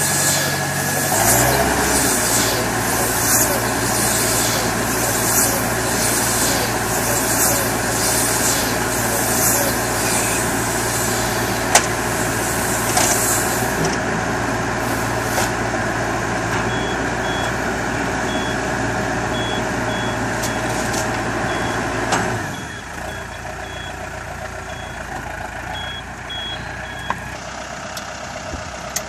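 Engine driving a BWR2-150 bale wrapper at work, with a rhythmic swishing over the steady hum for roughly the first half. In the later part short high beeps sound repeatedly, and about three-quarters through the engine drops to a lower, quieter run.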